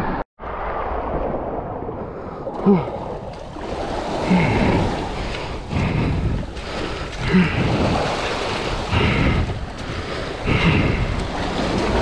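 Sea waves washing and splashing over a rocky shore shelf, with wind buffeting the microphone. The sound drops out completely for a split second near the start.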